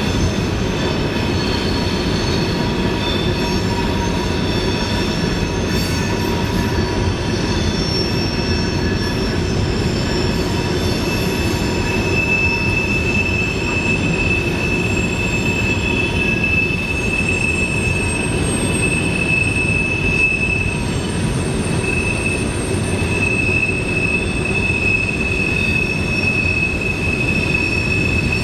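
Long freight train rolling around a sharp curve: a steady rumble of the cars, with high wheel-flange squeal from the wheels grinding against the rail on the curve. A louder, steady squeal sets in about halfway through.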